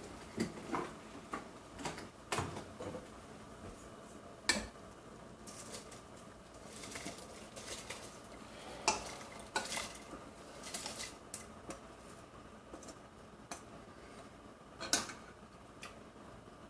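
Metal utensils clinking and scraping against a cooking pot as rice is put into boiling water and stirred, in irregular knocks; the loudest come about four and a half seconds in and near the end.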